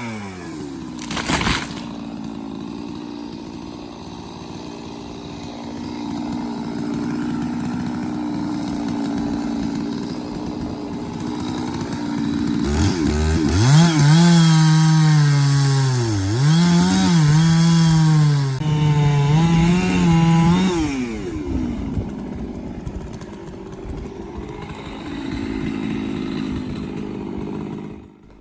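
Chainsaw engine dropping from high revs to a lower steady note at the start, then revved hard from about halfway for several seconds, its pitch dipping and recovering repeatedly, before falling back to a lower note.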